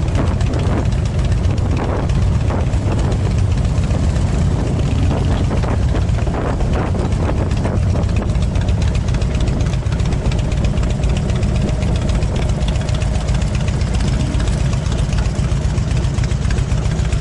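Motorcycle engines idling and running, a steady low rumble, as bikes ride off one after another.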